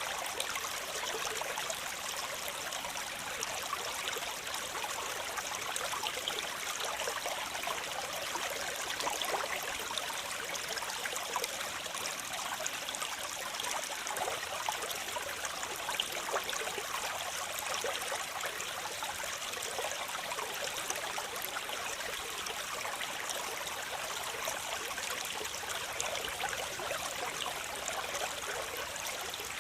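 Waterfall: falling water splashing in a steady rush, mostly a bright hiss with little deep rumble.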